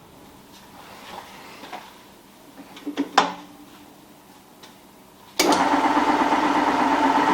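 A few clicks and knocks, then about five seconds in the Meddings MF4 drill press's electric motor switches on suddenly and runs with a steady hum.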